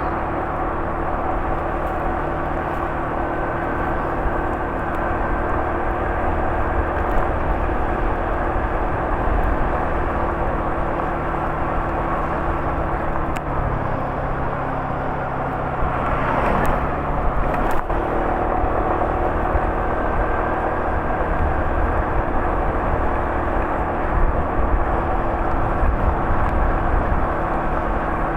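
A vehicle engine running with a steady hum, its low tone shifting about halfway through, with a brief louder disturbance a little past the middle.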